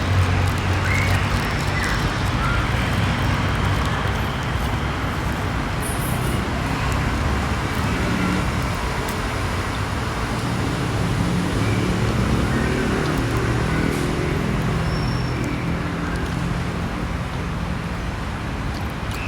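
Steady road traffic noise: vehicles passing, under a low engine hum that wavers in pitch.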